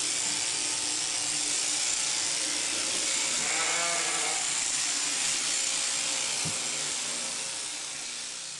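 Electric sheep-shearing handpiece, driven through an overhead down tube, running steadily with a high hiss as it cuts through the fleece. A sheep bleats once about three and a half seconds in, and the sound fades away near the end.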